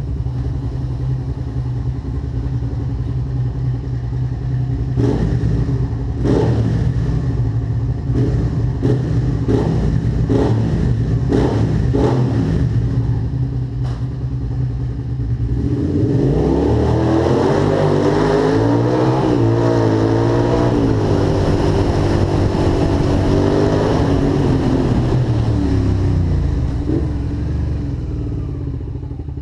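Suzuki SV650 90-degree V-twin with an aftermarket slip-on exhaust idling, then blipped sharply about ten times in quick succession, then revved up and held at higher revs for several seconds before dropping back to idle.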